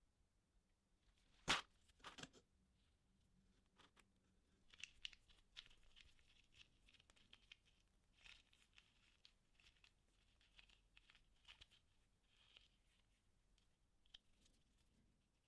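Faint handling sounds of a small three-jaw chuck from a laser rotary attachment: a sharp click about a second and a half in, then scattered soft clicks and rustles as its key is turned.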